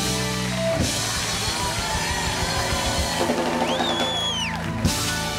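Live band playing upbeat music with drum kit, keyboards and a soprano sax, with a loud cymbal-heavy hit about five seconds in.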